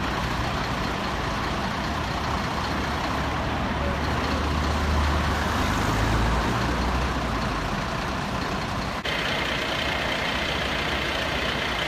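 Parked fire engines' diesel engines idling with street traffic. The low engine hum swells for a few seconds midway. After a cut about nine seconds in, a steady higher whine runs alongside it.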